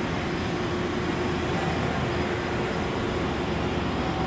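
Steady machine-shop background noise: an even rush with a faint steady hum, with no knocks or breaks.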